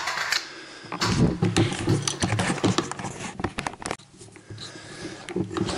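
A quick string of sharp clicks and clacks from a carbine being handled in a dry magazine-change drill: the magazine released and pulled, a fresh one pushed home, and the bolt release struck. The clicking starts about a second in and runs for about three seconds.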